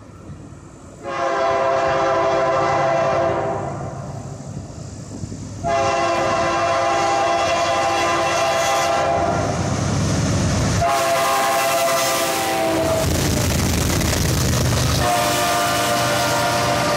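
Air horn of a CSX freight train's lead GE C40-8W locomotive sounding four blasts, the third shorter than the others: the long-long-short-long grade-crossing signal. The horn's pitch drops slightly as the locomotive passes, while its diesel engine rumbles loudly and the intermodal cars roll by behind it.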